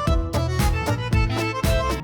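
Music with a quick, steady beat and pitched melody notes.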